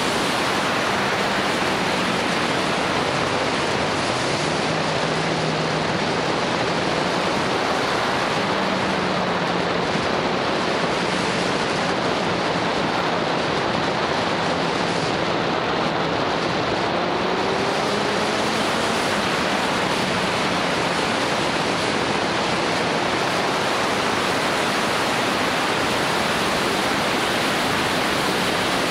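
Steady rush of wind noise over the microphone of a moving motorbike, with the motorbike's engine faintly audible beneath it, its pitch drifting up and down a little.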